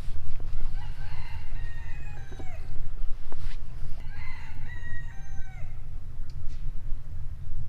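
A rooster crowing twice, each crow about a second and a half long, over a steady low rumble.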